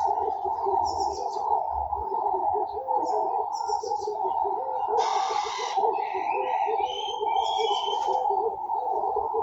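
Garden birds calling together: steady low cooing under scattered high chirps, with a harsh call about five seconds in and a run of whistled notes near the end.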